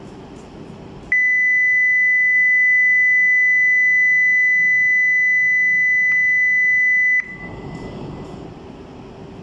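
Station platform departure signal: one steady, high electronic beep held for about six seconds, then cutting off abruptly, signalling that the Shinkansen is about to leave.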